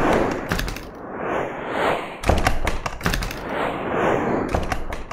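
Advertisement sound effects: a string of whooshes that swell and fade every second or two. Bursts of rapid clicks and cracks come near the start, a little after two seconds, and again near the end.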